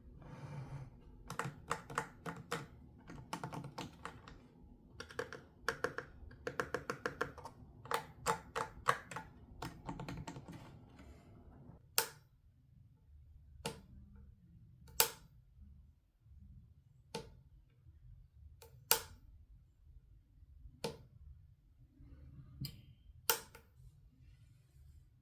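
Plastic toy-set pieces being handled and fitted together: a run of quick clicks and rattles, then single sharp clicks every second or two.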